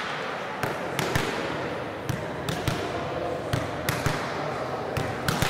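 Volleyballs being hit and bouncing on a gym floor: about a dozen sharp, irregular thuds over a low hum of voices.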